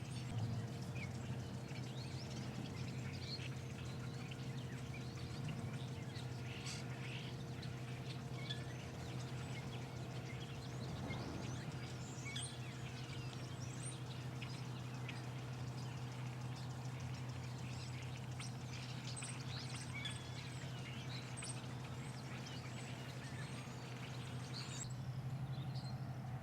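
Small birds chirping and twittering, many short calls scattered throughout, over a steady low hum.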